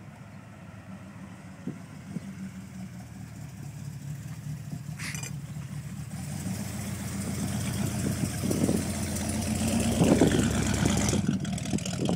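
Chevrolet Corvette C3's V8 engine running at low speed, growing steadily louder as the car comes close. The engine swells twice near the end.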